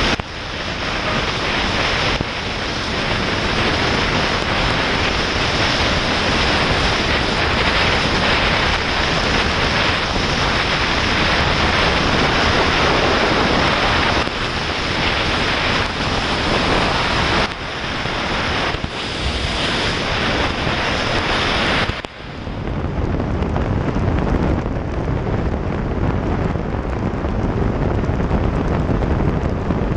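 Steady wind rushing over the microphone mixed with the hiss of heavy rain and wet-road spray, from a motorcycle riding at highway speed in the rain. About two-thirds of the way through, the high hiss drops away suddenly, leaving a duller rumble.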